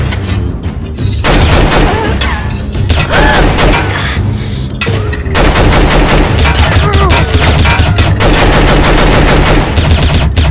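Rapid gunfire shots in quick bursts, like a machine gun, over background music with a steady bass.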